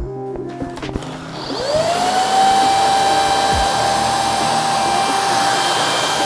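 Greenote GSC50 cordless stick vacuum with its small motorised brush head switched on about a second and a half in, the motor quickly spinning up to a steady high whine over a rush of air, running on its lowest power setting.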